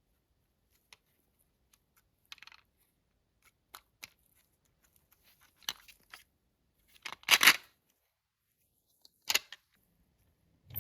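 Marbles clicking and clattering on the pieces of a wooden HABA marble run: scattered single taps, a short rattle about two and a half seconds in, a louder clatter about seven seconds in and one more sharp click a little after nine seconds.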